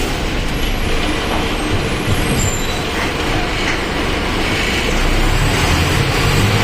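Mercedes-Benz OF-1722M bus's diesel engine running while the bus drives, a steady rumble mixed with road noise that grows a little stronger near the end.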